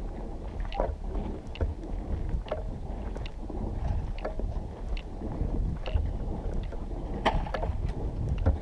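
Wind buffeting the microphone as a steady low rumble, with a scatter of small irregular clicks and taps over it.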